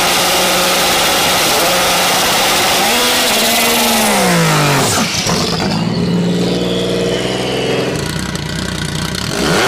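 Modified Nissan GT-R drag car's twin-turbo V6 running loud and rough as the car creeps forward. A rev falls away about four seconds in, the engine holds a steady high idle, and the revs rise again near the end.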